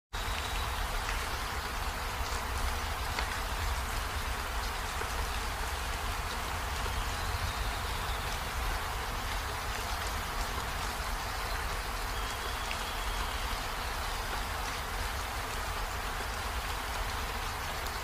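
Steady rain falling: an even hiss with scattered faint drop ticks and a low rumble underneath.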